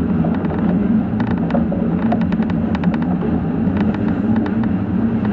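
Electric commuter train running along the track, heard from inside the front cab: a steady running hum and rumble with frequent light clicks and rattles.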